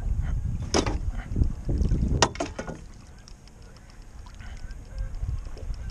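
Wind buffeting the microphone and water lapping around a small boat on choppy water. There are several sharp knocks and clatters in the first three seconds, and it quietens after that.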